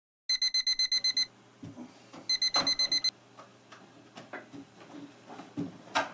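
Electronic alarm clock beeping in fast pulses, about eight a second, in two short bursts a second apart, then silenced by hand. Soft rustling of bedclothes and a few light knocks follow, with a sharper knock near the end.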